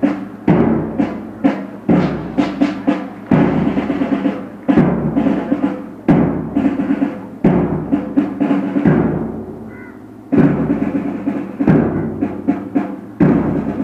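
Drum beats in a steady rhythm, a heavy stroke about every second and a half followed by a few lighter strokes, keeping time for a group doing exercise moves in unison.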